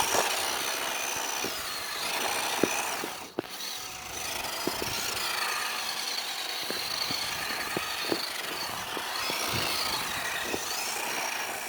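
The electric motor of a WPL D12 RC drift truck whining as it speeds up and slows down again and again while the truck is driven, with scattered short ticks.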